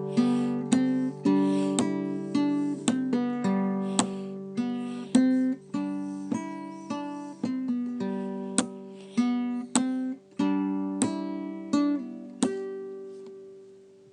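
Instrumental music: chords strummed on a stringed instrument, one strum after another, the last chord near the end left to ring and fade out.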